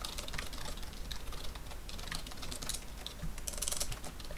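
Computer keyboard being typed on: a quick, irregular run of keystrokes as login details are entered, with a dense flurry of keys a little after three seconds in.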